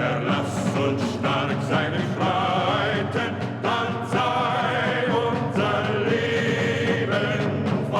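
German military march music: held full chords, with a choir-like sound, over a steady drumbeat.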